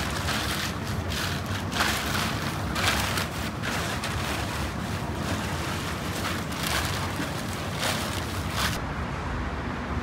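Electric dough mixer running with a steady low hum while it kneads, with irregular hissing and scraping noises over it until about nine seconds in.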